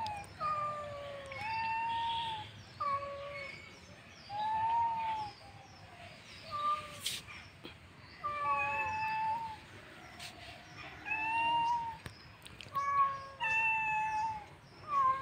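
A cat meowing over and over: a long string of short, pitched meows, many of them falling in pitch, with brief pauses between them.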